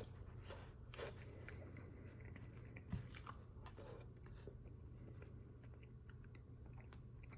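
Faint chewing of a soft mouthful of chicken enchilada bake (corn tortilla, black beans, rice and chicken): soft wet mouth clicks, with a few louder ones, the loudest about three seconds in. A low steady hum sits underneath.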